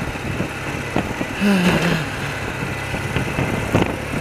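Old BMW motorcycle engine running steadily at a slow cruise, heard from the rider's seat. A brief low voiced murmur comes about a second and a half in.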